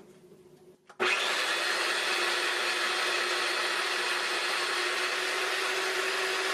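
Ninja Precision Processor's motor base starting about a second in and running steadily with an even whir and a constant hum, driving the auto-spiralizer's fettuccine blade disc through a peeled butternut squash.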